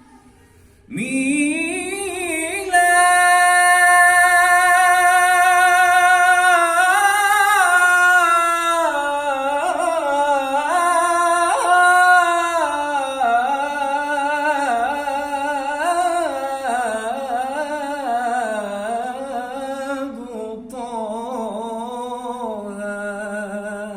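Unaccompanied solo voice chanting an Islamic nasheed, with no instruments. About a second in, a long note is held; it gives way to ornamented melismatic runs that sink lower in pitch toward the end.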